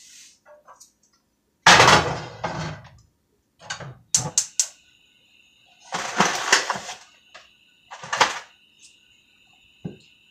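Kitchen utensils and cookware being handled at the stove: a loud clatter about two seconds in, several sharp clicks and knocks, and another clatter about six seconds in.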